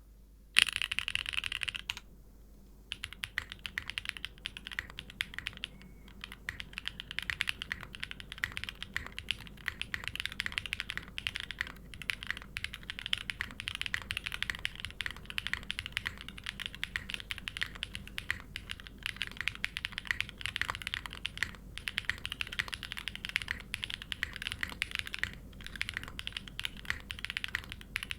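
Fast, continuous typing on a plateless, O-ring-mounted hex.50fe custom mechanical keyboard with Gateron Raw linear switches under OP glass top housings and GMK Shadow keycaps, a dense run of key clacks. Near the start comes a short loud burst of sound, then about a second of near quiet before the typing begins.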